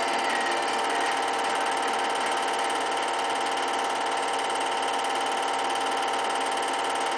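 A steady mechanical whirr from a small motor, with a constant hum of several fixed tones that stays the same throughout.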